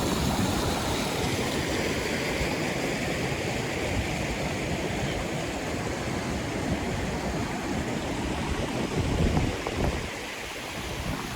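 Steady rush of water over a small creek rapid, with a few dull low bumps about nine seconds in.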